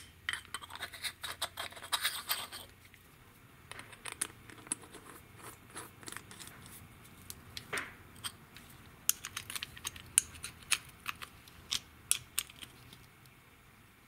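Light handling noises from a lawnmower carburetor being reassembled by hand: scattered clicks, scrapes and scratches as the metal float bowl, with a new O-ring, is fitted onto the carburetor body.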